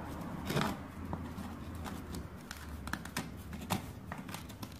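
Old red hexagonal terracotta floor tile being pressed and shifted by hand into fresh mortar: scattered small scrapes and clicks, the loudest about half a second in, over a low steady hum.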